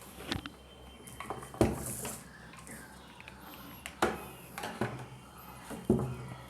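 Hard objects being handled, making a handful of irregular knocks and clicks, the loudest about one and a half seconds in.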